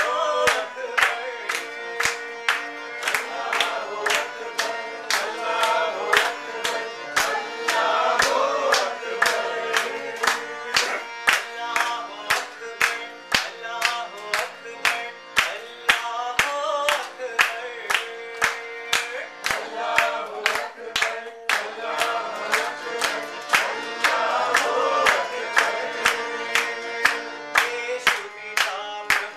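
An Indian song sung over the held notes of a harmonium, with the listeners clapping along in a steady beat of about two claps a second.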